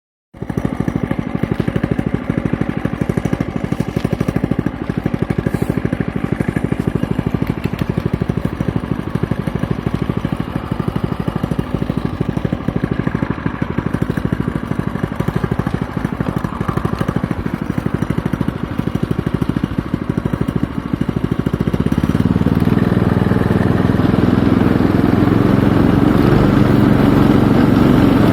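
A vehicle engine running steadily with a fast, even pulse, growing louder and heavier about three-quarters of the way through.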